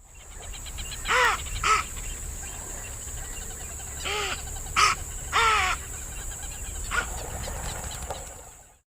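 Capybara giving a series of short, harsh calls, about six in all, each rising then falling in pitch. A steady high hiss runs underneath.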